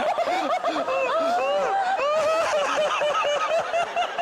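People laughing hard and helplessly after a gross punchline, in a steady run of short high-pitched broken breaths and yelps of laughter.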